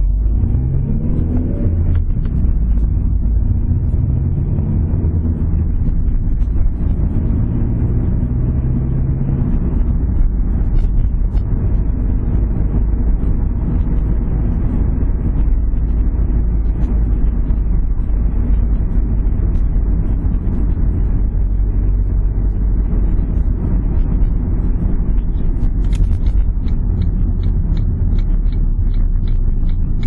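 Car engine heard from inside the cabin, rising in pitch as it accelerates and changes up through the gears, then settling to a steady low rumble while cruising. Near the end the turn indicator starts its steady, regular ticking.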